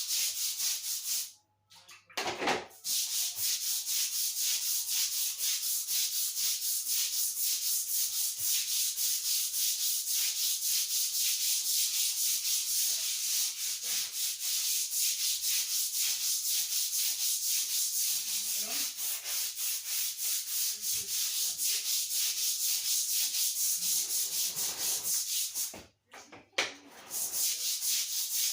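Stiff scrub brush scrubbing a bathroom floor in rapid, rhythmic back-and-forth strokes, with two brief pauses, about two seconds in and near the end.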